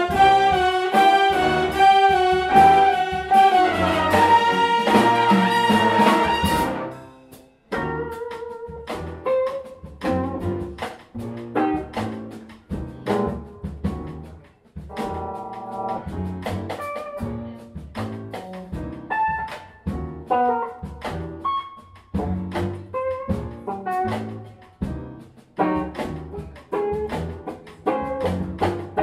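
Big band jazz: the full brass and saxophone section plays loud held chords, then cuts off abruptly about seven seconds in. A sparse rhythm section of drums, bass and a guitar solo of short, punchy notes follows.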